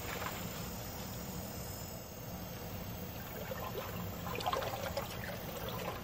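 Water trickling in a galvanized stock-tank hot tub, with crinkly rustling from the middle onward as the tub's plastic cover is pulled back.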